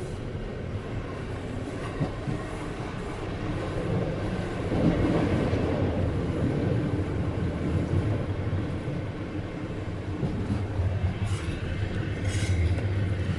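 Steady rumble of a moving passenger train heard from inside its carriage, the wheels running on the rails, growing a little louder about five seconds in.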